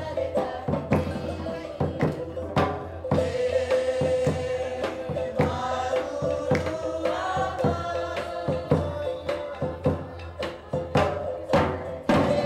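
Group of voices singing together to a song with drum strikes. The music changes suddenly near the end.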